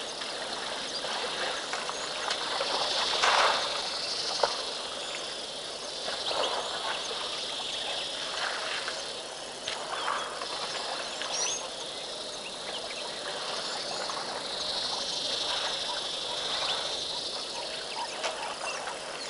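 Bush ambience: a steady high-pitched insect chorus that swells and fades, with scattered short bird calls.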